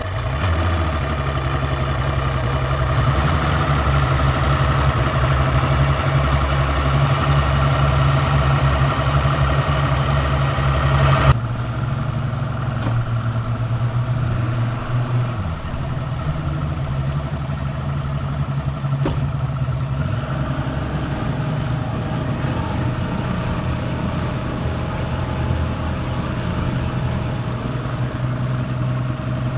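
Twin Mercury Racing DSI 3.0-litre two-stroke outboards, spark-ignited but burning diesel, running steadily with no revving. About eleven seconds in, the sound changes abruptly to a slightly quieter, duller run.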